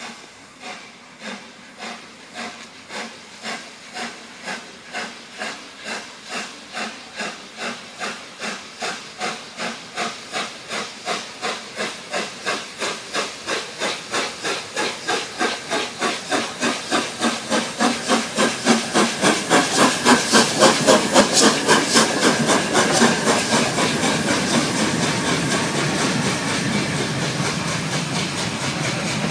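LNER A1 Pacific steam locomotive 60163 Tornado, a three-cylinder engine, working a train with a sharp, regular exhaust beat. The beats quicken and grow steadily louder as it approaches and draws level. Near the end they blur into the steady rumble of the engine and coaches passing close by.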